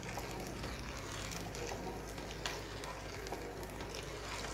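A spatula stirring milk and sugar in a wide pan: soft swishing with a few faint light clicks against the pan, over a steady quiet hiss.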